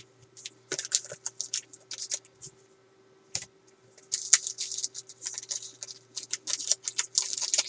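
Glossy Topps Chrome trading cards being handled: a rapid, crisp crackling rustle in two spells, with a short pause a little before halfway.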